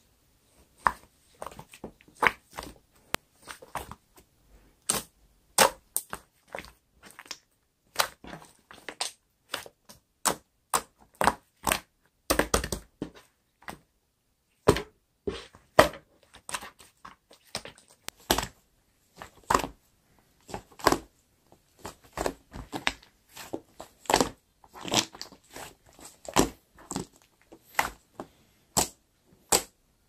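Hands squishing, stretching and pressing a mixed clear and fluffy slime, giving irregular sharp pops and crackles as air trapped in the slime bursts, often in quick clusters with a few louder snaps. There is a short lull about halfway through.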